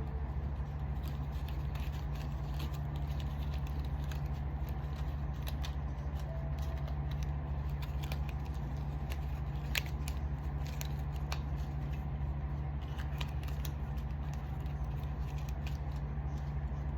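Steady low hum with scattered faint clicks and ticks, one sharper click about ten seconds in.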